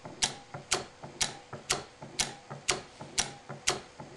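Homemade reciprocating magnet motor, its coil shuttling along a bar between permanent magnets, clicking steadily about twice a second as the coil hits the magnet at each end and its relays switch it over. The motor is running smoothly.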